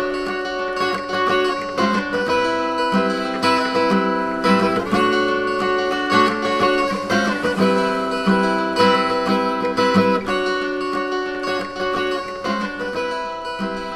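Background music led by plucked acoustic guitar, with a steady rhythm of notes.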